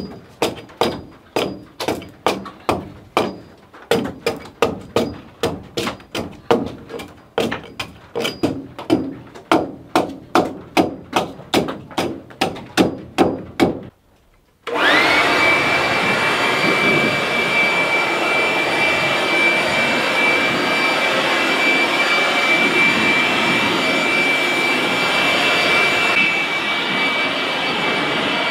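A fast, regular run of knocking strikes, about two to three a second, on the bark-covered cabin logs. About fourteen seconds in, after a brief pause, a power tool's motor spins up with a quickly rising whine and then runs steadily at a constant pitch.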